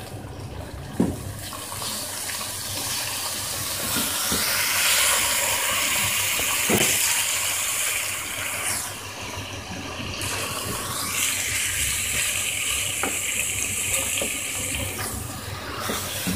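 Raw minced meat frying in hot oil in a pot: a steady wet sizzle that swells a few seconds in, as the mince gives off its water while it browns. A wooden spatula knocks and scrapes against the pot now and then as the meat is stirred.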